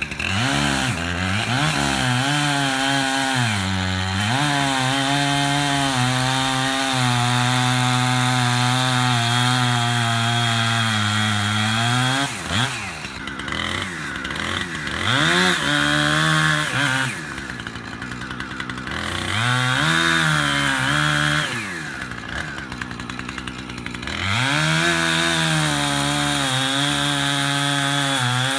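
Two-stroke chainsaw cutting cedar: held at full throttle for about twelve seconds with a brief dip, then dropping to idle and revving up again three times.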